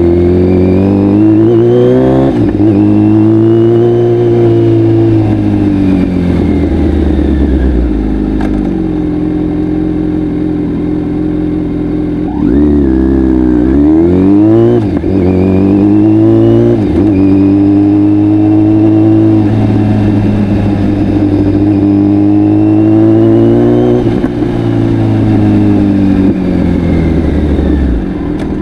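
Kawasaki Z900's inline-four engine through an Akrapovic full exhaust, revving up and dropping back several times as it pulls through the gears, holding steady revs in between.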